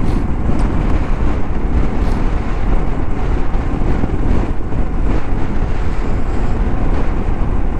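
Strong crosswind buffeting the microphone on a moving Moto Guzzi V85TT motorcycle, a steady rushing noise over the bike's V-twin engine and road noise.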